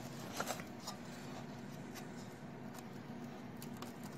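Faint, scattered clicks and rustling as fingers work a new cotton wick against the toothed metal wick sleeve of a Kerona WKH-22G kerosene heater, pushing the locating pins into their slots.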